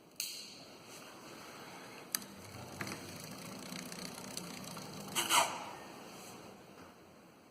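Hands and tools working on a bicycle's thumb shifter and gear cable: clicks and handling noises, with a short louder sound a little past the middle.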